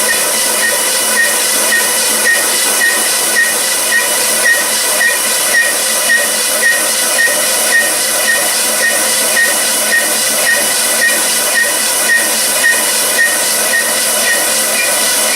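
A machine tool running steadily with a loud hiss and a light regular beat about twice a second.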